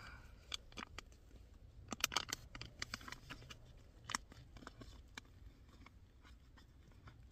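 Someone eating a camp meal with a spoon: faint, scattered light clicks and scrapes of the spoon against the food container, bunched about two seconds in, with one sharper tick around four seconds in.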